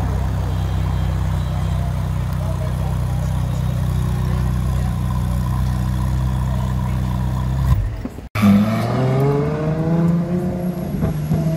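Ferrari 458 Speciale A's V8 idling steadily. Then, after a cut, a V12 Ferrari pulls away on the road, its engine note rising as it accelerates, with a second rise after a shift.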